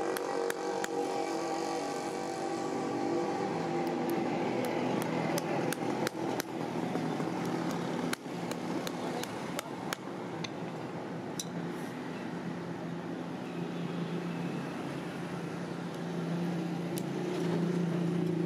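Irregular light hammer taps on the nails of a bull's hoof shoe, several sharper knocks among them. A steady engine hum runs underneath and swells near the end.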